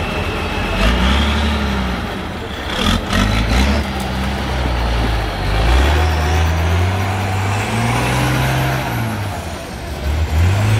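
Trial truck's engine labouring in a mud hole, revving up and easing off several times, with a short hiss about three seconds in.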